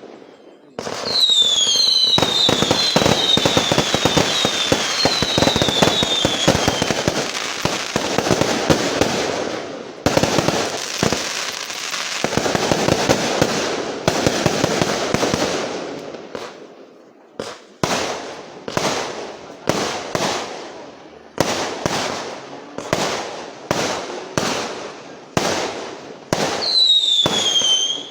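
Firecrackers and fireworks going off: a long run of rapid crackling bangs, with several high whistles falling in pitch near the start, then from about halfway on single loud bangs roughly once a second, with more falling whistles near the end.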